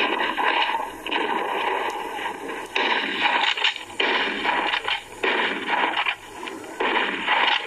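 Garbled soundtrack of a damaged video disc played through computer speakers: harsh, noisy sound that breaks up and cuts in and out in irregular chunks as the playback glitches.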